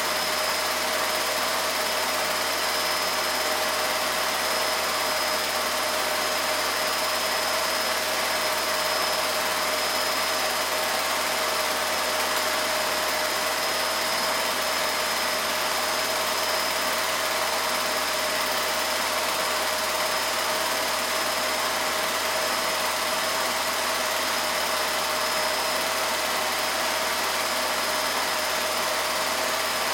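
Steady mechanical whir and hiss of a home-movie film projector running, with two steady tones in it, a low hum and a high whine.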